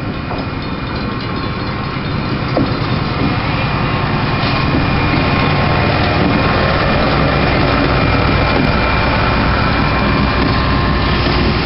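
Northwestern Pacific diesel-electric locomotive running past at low speed. Its engine grows louder over the first few seconds as it draws close, then holds steady.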